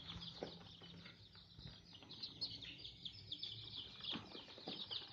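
Young kampung super chicks peeping steadily, many high, short cheeps overlapping in quick succession.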